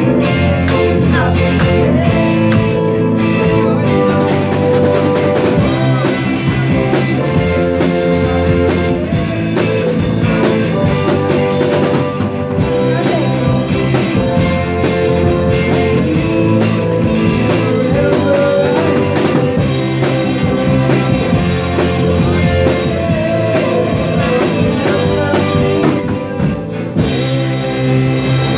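A small live band playing a rock-style song on electric guitar and drum kit with cymbals, with a voice singing over it.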